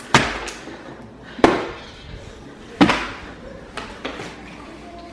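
Partly filled plastic water bottle being flipped and landing hard on a solid surface: three loud thuds about a second and a half apart, then two lighter knocks near the end.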